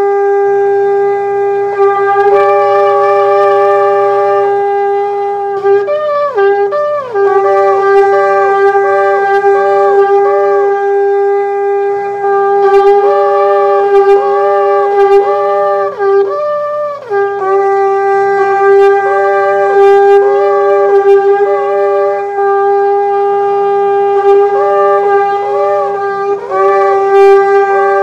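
Shofar sounding, a continuous held note rich in overtones, with a higher note breaking in and out in short repeated calls, about two a second in several runs.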